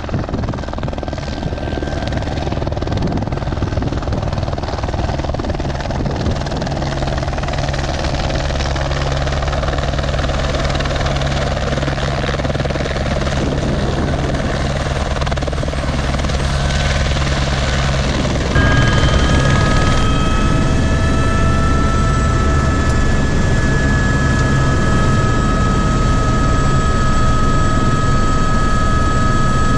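Helicopter running, with a steady low rotor beat that grows louder. About eighteen seconds in the sound steps up and a steady high-pitched whine joins the beat.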